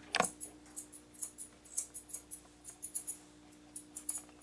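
Grooming scissors snipping the fluffy fur around a dog's paw: a quick run of short, crisp snips, about three a second.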